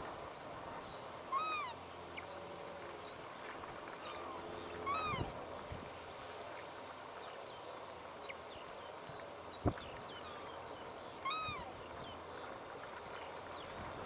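Banded stilts calling: three short yelping calls, each bending up then down, about a second, five seconds and eleven seconds in, over a scatter of faint high chirps. A single sharp click sounds just under ten seconds in.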